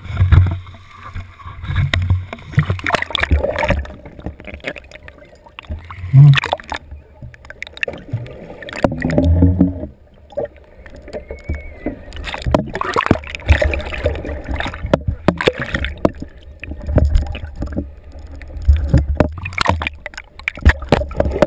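Water sloshing and gurgling around an action camera held just under the sea surface, with irregular low thumps and knocks as it is moved about in the water.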